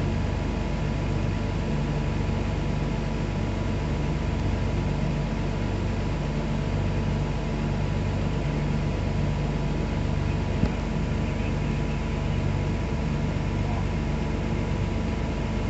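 Heavy truck diesel engine of a loaded Scania sugarcane truck running at low revs as it creeps forward: a steady low drone with a slow pulsing beat. A single short click sounds about ten and a half seconds in.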